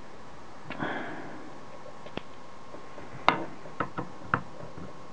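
A screwdriver and small camera parts clicking and tapping against each other during a teardown of the CCD board: a short rustle about a second in, then five sharp clicks, the loudest a little after three seconds.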